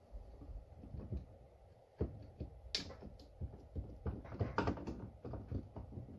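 Hand-handling noises on an old McCulloch 1225A chainsaw as its carburetor is wiggled and pried at: a run of irregular metal clicks, taps and knocks that grows busier after about two seconds. The carburetor is loose but still held by something.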